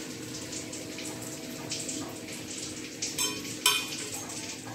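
Almond-paste gravy simmering steadily in a metal kadhai, with a metal spatula scraping and clinking against the pan twice about three seconds in as chopped fenugreek leaves go in.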